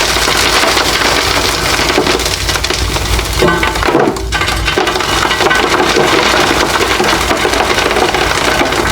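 Slabs of reformed gym chalk being crushed and broken apart: a dense, continuous crunching and crumbling crackle, with a brief lull about four seconds in.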